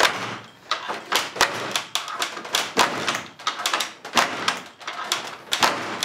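Interior door shoved again and again against a metal swing-bar door guard, banging and rattling in an irregular run of knocks, about two to three a second. The guard is being forced and is getting weak.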